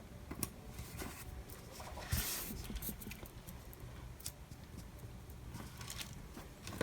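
Small paper stickers being peeled off a sticker sheet and pressed onto a planner page: faint paper rustles and light taps, with a brief rustle about two seconds in.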